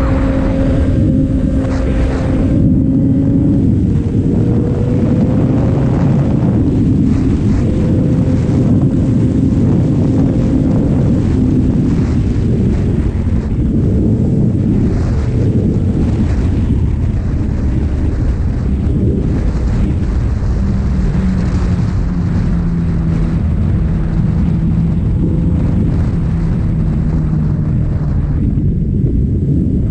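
Motorcycle engine running under way with wind rushing over the microphone, its pitch rising and dropping with throttle and gear changes and settling lower in the second half.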